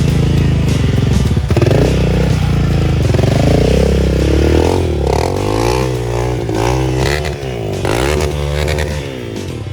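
Small motorbike engine running, its revs rising and falling over and over as the throttle is worked.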